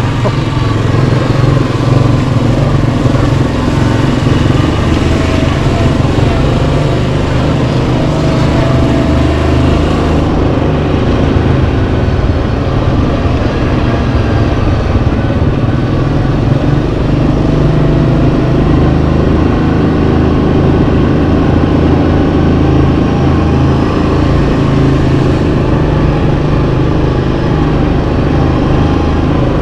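Yamaha Kodiak 700 ATV's single-cylinder engine running steadily while riding, its engine speed rising and falling a little.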